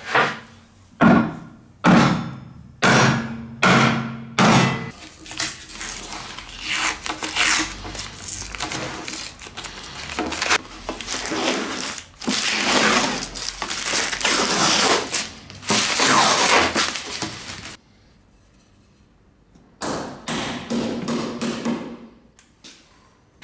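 Hammer blows on a wooden block folding the edge of a clamped metal sheet, about one a second for the first five seconds, each a sharp knock with a short low ring. Then a long stretch of crackling and rustling as the plastic protective film is peeled off the sheet, with one shorter burst of it near the end.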